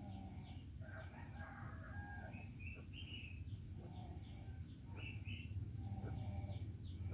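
Faint bird calls: short whistled notes at varying pitches, repeated irregularly over a low steady hum.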